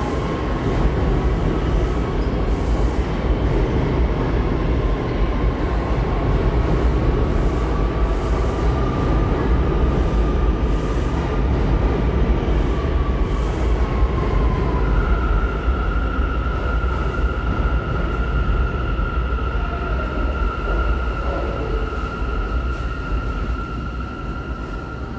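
New York City subway train in an underground station: a continuous low rumble with a faint wavering whine, then a steady high-pitched whine that starts about halfway through and holds for around ten seconds. The rumble eases off slightly near the end.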